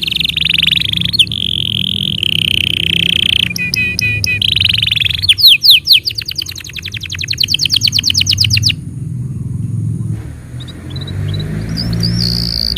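Domestic canary singing: long trilled rolls, then a fast run of sharp repeated notes from about five to nine seconds in. After a brief pause come softer chirps near the end, over a steady low background hum.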